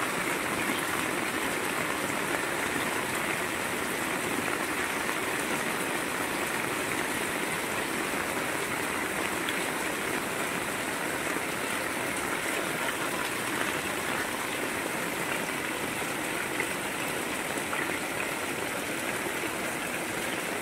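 Heavy rain falling steadily, with runoff from the roof edge pouring in a thick stream onto the ground: an even, unbroken rush of water.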